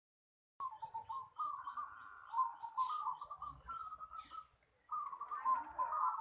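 Zebra dove (perkutut) cooing: rapid trilled coo phrases at a fairly steady pitch, starting about half a second in, with a brief pause about four and a half seconds in before calling resumes.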